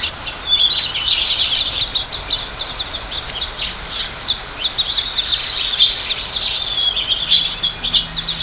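A dense chorus of small birds chirping, many quick high calls overlapping without pause. Faint low steady tones come in near the end.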